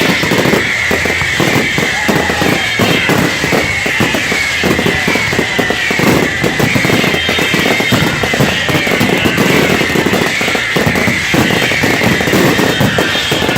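Fireworks going off in a dense, rapid string of bangs and crackles, with music playing underneath.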